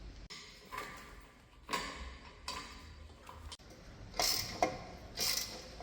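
A series of light knocks and metallic clinks, roughly one a second and louder toward the end, some with a short ring: parts or tools being handled during car repair work.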